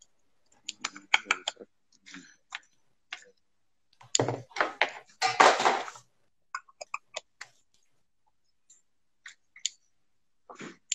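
Scissors cutting through the puffy crust of a canotto-style pizza: irregular short clicks and crunches, loudest about four to six seconds in.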